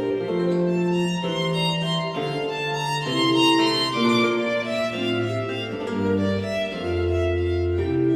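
Slow instrumental background music led by bowed strings, held notes over a bass line that moves from note to note.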